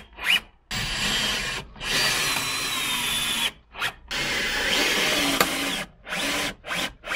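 Cordless drill-driver driving screws into the wooden frame of an attic ladder, in about four runs of motor whine with short stops between them. The whine sinks slightly in pitch during the longer runs.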